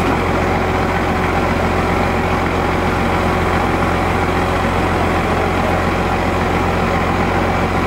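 A truck engine running at a steady speed, a low even drone with no change in pitch, typical of the crane truck's engine left running to work the hydraulic boom.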